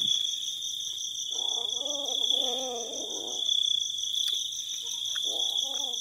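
Insects chirring without a break: one high steady trill with a faster pulsing trill above it. Twice, about one and a half seconds in and again near the end, short low wavering vocal sounds rise over them.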